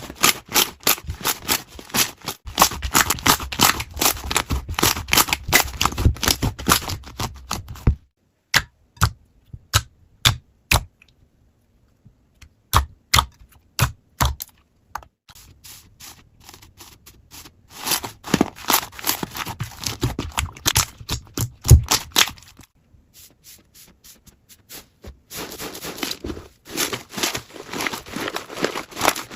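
Slime being squished and pressed, making rapid crackling clicks and pops. The clicks thin to scattered pops for several seconds in the middle, then grow dense again.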